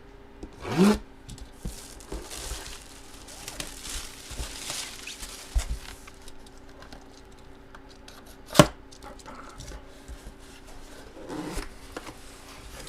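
Handling and opening a boxed collectible jersey: cardboard and plastic packaging crinkling and tearing in scattered bursts, with one sharp knock about two-thirds of the way through, over a faint steady hum.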